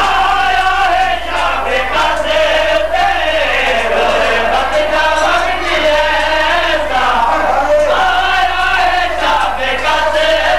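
Male voices chanting a Shia Muharram noha (a mourning lament), a lead reciter amplified through loudspeakers with the crowd of mourners chanting along. Sharp slaps of chest-beating (matam) run through it.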